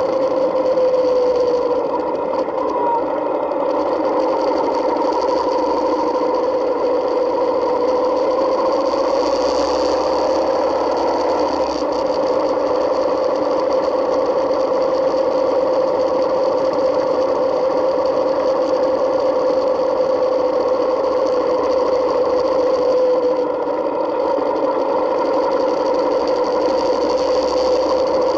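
Yamaha Midnight Star 1900's air-cooled V-twin engine running steadily under way, its pitch dipping slightly about a second in and again near the end.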